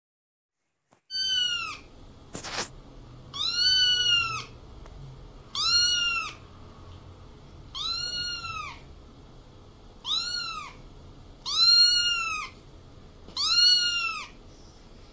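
A kitten meowing repeatedly: about seven high calls, each rising and falling in pitch and under a second long, spaced a couple of seconds apart, starting about a second in.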